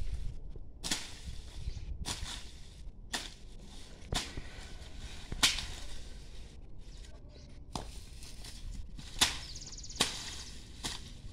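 A hand farming tool striking weeds, stalks and soil while land is cleared, in sharp, irregular strokes about one a second.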